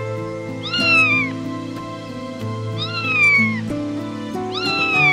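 An animal's high-pitched call, three times, each rising and then sliding down in pitch, over background music.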